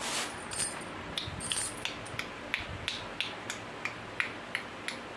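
A run of light, sharp clicks, evenly spaced at about three a second, starting about a second in, over a faint steady hiss.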